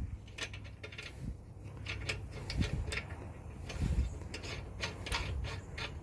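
Irregular metallic clicks and clinks as a washer and a bolt are fitted by hand into a truck air bag's mounting.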